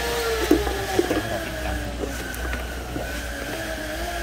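A motor engine running steadily, its pitch drifting slowly down and back up, with a low hum beneath and a few light clicks about a second in.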